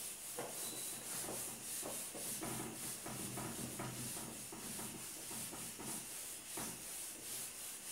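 A whiteboard eraser rubbing back and forth across a whiteboard in repeated wiping strokes as marker writing is wiped off.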